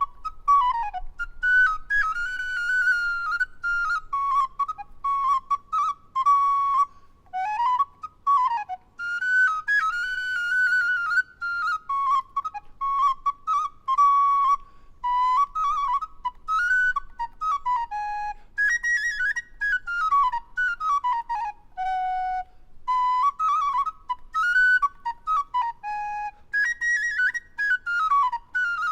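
Solo recorder playing a fast, high tune of quick runs, trills and short slides up and down, broken by brief pauses between phrases.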